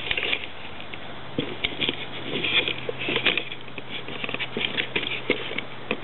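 Irregular light crackles and taps from a handheld camera being moved and handled, over a faint steady low hum.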